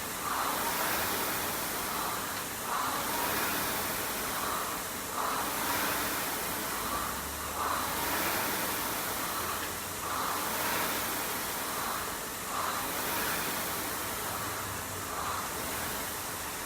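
A person breathing heavily from hard exertion, about one breath every two and a half seconds, over a steady background hiss.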